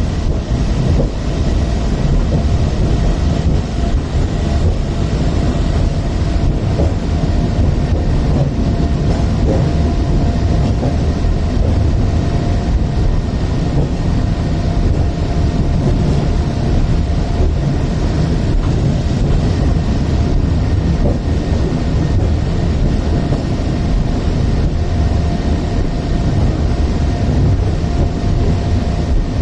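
Hong Kong Peak Tram funicular car running downhill, heard from inside the car: a steady, loud low rumble of the wheels on the rails, with a thin steady whine above it.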